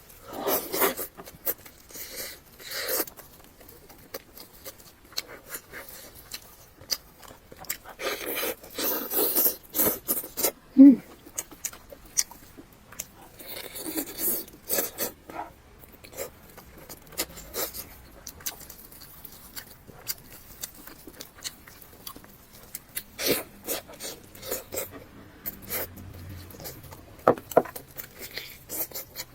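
Close-miked eating sounds: a person biting and chewing salt-baked chicken that comes off the bone, in irregular bursts of wet chewing, tearing and crunching. A brief hum-like vocal sound about eleven seconds in is the loudest moment.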